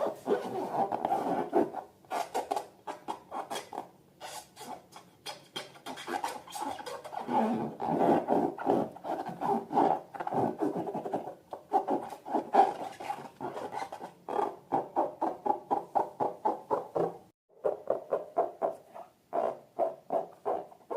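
Rubber balloons squeaking and rustling as they are handled, in quick uneven squeaks that settle into an even run of about three to four a second near the end.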